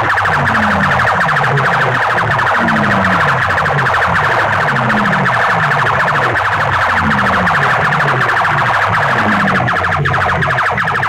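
Dozens of horn loudspeakers blasting a harsh, distorted, siren-like electronic sound at full volume. Under it, a low tone slides down again and again, about one and a half times a second.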